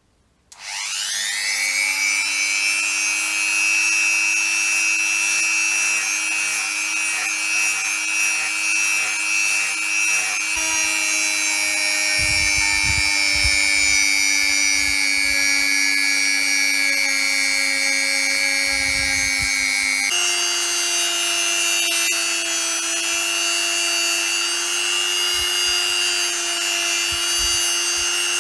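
An electric power tool starts up about half a second in, its motor whine rising and settling to a steady pitch, then runs on continuously, likely at work on the rusty iron. Its pitch shifts abruptly twice, with some low knocks in the middle stretch.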